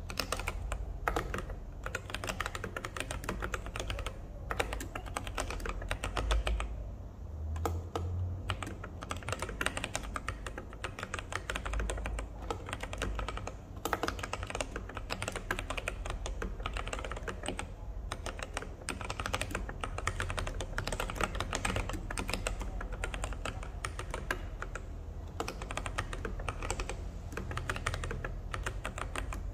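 Typing on an NJ68 mechanical keyboard with Kailh Polia tactile switches: a fast, continuous run of keystroke clicks, with a short lull about seven seconds in.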